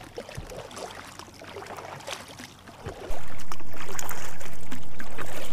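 Kayak paddle strokes: the blades dipping and pulling through calm water, with irregular drips and small splashes.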